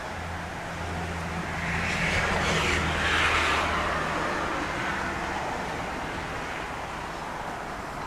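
A passing vehicle's noise swells for a few seconds and fades, over a steady low hum.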